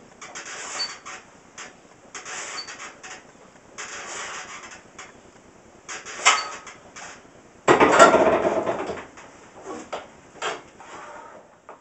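Barbell bench press reps: a short noisy sound with each rep, about every two seconds. A little under eight seconds in comes a loud, sudden clatter that dies away over about a second as the loaded bar is set back onto the wooden rack.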